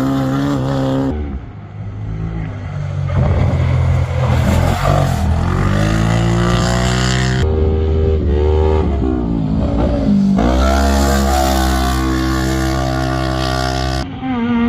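Racing engine revving and accelerating, its pitch climbing, dropping and climbing again, with several abrupt changes in the sound.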